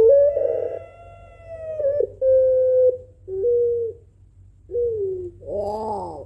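Puter pelung, a long-voiced strain of ringneck (Barbary) dove, cooing. It gives one long drawn-out coo of about two seconds, then three shorter coos, and a fuller, rougher coo near the end.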